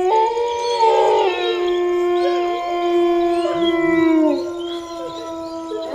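Several canines howling together: long, steady wails overlapping with shorter cries that slide up and down in pitch.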